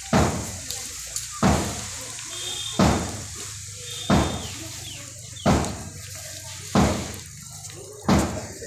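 A drum beaten in a slow, steady beat, one stroke about every 1.3 seconds, each stroke ringing out briefly. It is keeping time for a mass drill exercise.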